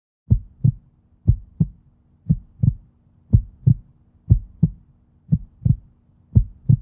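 Heartbeat sound effect: seven lub-dub double thumps, about one pair a second, over a faint steady low hum.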